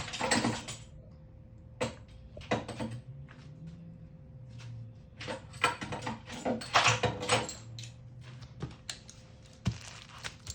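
Irregular clinks and knocks of hand tools, a socket and wrench handled while the motorcycle's oil drain plug is tightened, over a faint steady hum.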